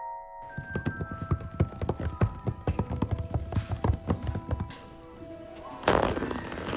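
Homemade foley effects over the trailer's music: a rapid, irregular run of knocks for about four seconds, then a sudden loud noisy burst near the end.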